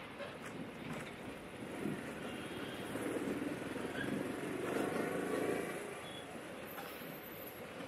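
Street ambience with traffic: a vehicle passing, its noise swelling in the middle and then fading.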